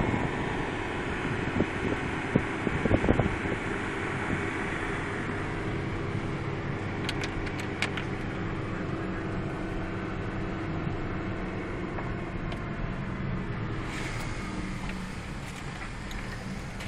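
Car cabin noise while driving: the engine and tyres run steadily. Wind buffets the microphone in the first few seconds, and a few light clicks come about seven to eight seconds in.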